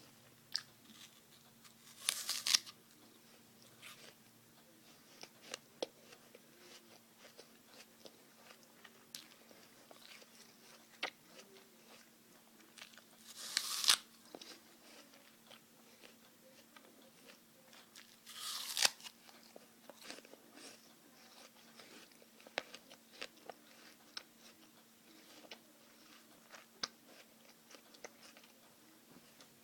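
A person biting into a raw apple, with three loud crunching bites about 2, 14 and 19 seconds in, and steady chewing with small crunches between them. A faint steady hum runs underneath.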